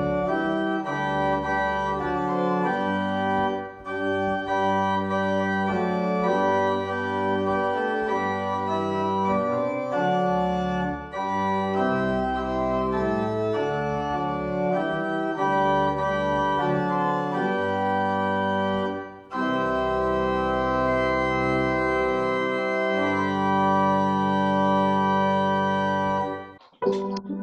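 Organ music: slow, sustained chords, with three brief breaks between phrases. It cuts off abruptly about a second before the end.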